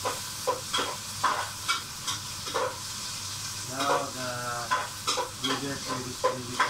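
Chopped garlic, ginger and onion sizzling in hot oil, with a steady frying hiss and a spatula clicking and scraping against the pan at irregular intervals as it is stirred.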